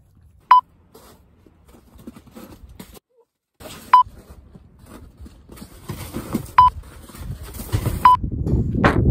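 Four short electronic beeps, each at the same single pitch, spaced irregularly a few seconds apart, over a low rustling rumble that grows louder toward the end.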